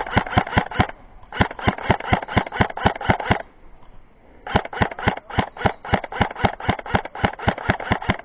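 Airsoft gun firing strings of rapid shots, about six a second, in three runs separated by pauses of about half a second and one second.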